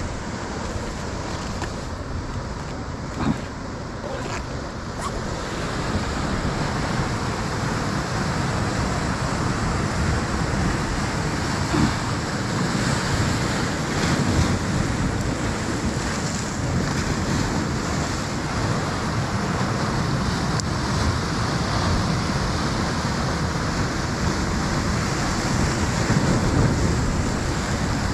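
Ocean surf washing onto a beach in a steady rush, with wind buffeting the microphone.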